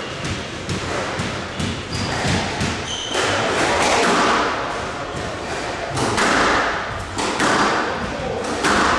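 Squash rally: the hard rubber ball thuds off rackets and the court walls in quick, uneven succession and echoes in the hall. Short high squeaks of shoes on the court floor come between the hits.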